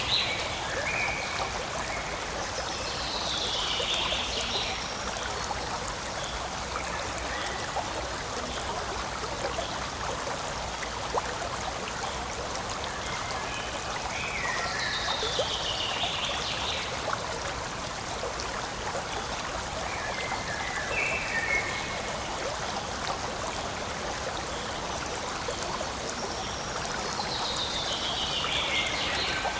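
Forest stream flowing steadily over stones. A bird sings a falling phrase three times, about every twelve seconds, with a few short chirps between.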